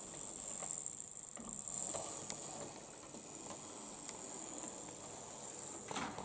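Model railway locomotive (a Class 90 electric) running along the track: a steady high-pitched motor whine over a low rumble of wheels on rail. Several clicks are heard as it crosses rail joints, the loudest about six seconds in.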